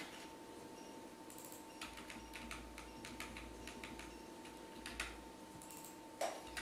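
Computer keyboard keystrokes: a few scattered taps and a quick run of them about two seconds in, over a faint steady electrical hum.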